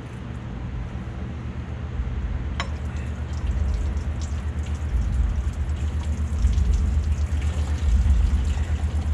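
Engine coolant draining out of the radiator through a disconnected line under the water pump and pouring into a catch pan, growing louder as it goes. One sharp click about two and a half seconds in.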